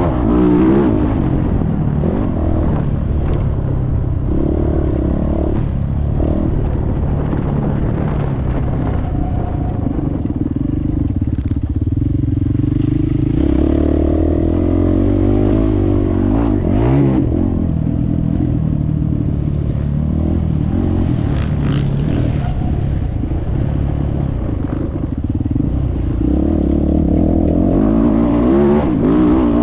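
A 450cc four-stroke single-cylinder motocross bike engine heard on board while racing, revving up and falling off again and again as the rider accelerates, shifts and backs off. Wind buffets the on-board microphone, and there are scattered clattering knocks over the rough track.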